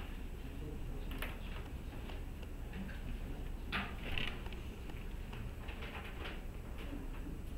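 Scattered small clicks and rustles of pens and paper being handled at desks, at irregular moments, over a low steady room hum.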